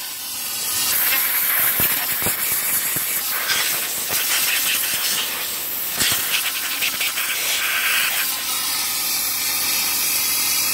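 Compressed-air blow gun on an air-compressor hose, blasting air into a shotgun's action and trigger group: a loud, continuous hiss that wavers as the air flow shifts. It blows out excess oil and dirt.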